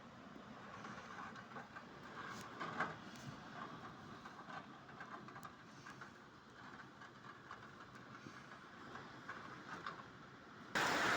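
Faint rain patter with scattered light ticks of drops. About ten seconds in, it switches abruptly to loud wind and heavy rain buffeting the microphone.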